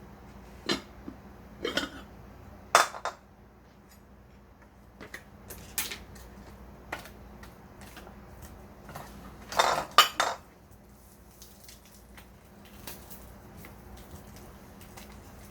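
Kitchenware being handled: dishes, pots and utensils clink and clatter in scattered knocks, loudest about three seconds in and again about ten seconds in, over a faint steady hum.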